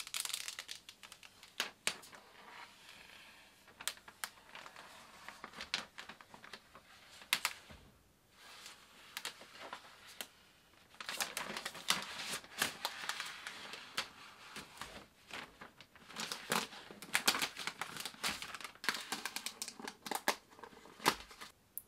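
Thin protective plastic film being peeled off the back of a new iMac, crinkling and crackling with many sharp little clicks. It comes in several stretches, with a short lull about eight seconds in.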